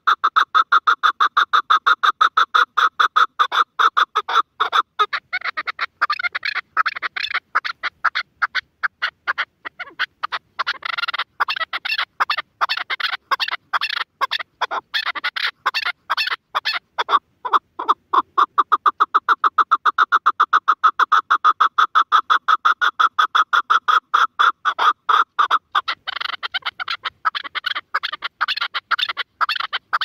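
Partridge calling in a long run of rapid, short notes, several a second. In some stretches the notes run together at a steady pitch; in others they break into a more ragged chatter.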